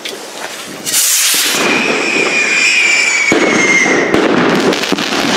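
Spanish Volador de Trueno stick rocket launching: a sudden rush about a second in, then a whistling tone that falls slightly in pitch as it climbs, and a sharp crack about three seconds in, followed by ongoing firework crackle.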